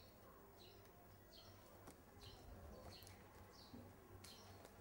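Near silence: quiet room tone with faint, short high chirps repeating every second or so.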